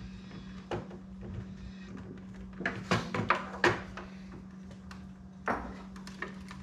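Hands handling a table saw's switch and wiring: sharp plastic and metal clicks and knocks, a quick run of four or five about three seconds in, with single knocks before and after, over a steady low hum.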